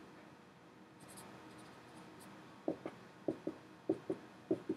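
Dry-erase marker writing on a whiteboard: faint squeaky writing at first, then, from about halfway in, eight short sharp marker strokes in quick pairs as equals signs are dashed down.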